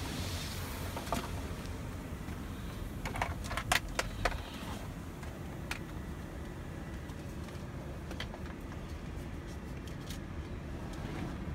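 Automatic car wash heard from inside the car: a steady low rumble of the wash equipment and water on the body. A cluster of sharp clicks and knocks comes about three to four seconds in, with a few single ticks later.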